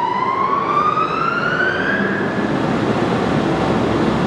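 Large Nishimori engine lathe's spindle drive speeding up toward its 130 RPM top speed in high range: a whine that rises steadily in pitch for about two seconds, then gives way to a steady mechanical running noise.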